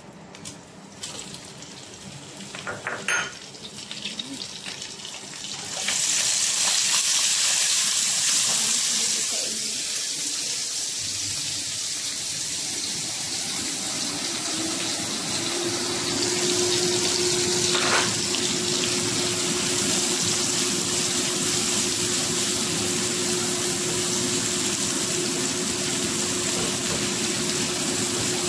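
Chopped aromatics hit hot oil in a wok and fry with a loud, steady sizzle from about six seconds in. From about fifteen seconds in, a kitchen range hood's extractor fan runs under the sizzle with a steady hum.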